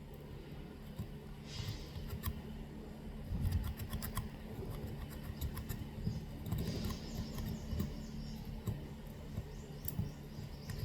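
Metal tweezers scraping and picking packed dirt out of a Samsung phone's USB-C charging port: small scratches and scattered clicks, with two brief scratchy passes, over a steady low hum.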